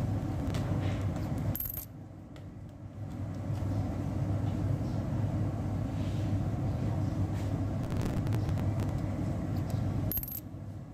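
A 1971 Lincoln cent being handled and turned over by a finger, with two short, high clicks of the coin, one about two seconds in and one near the end, over a steady low rumble.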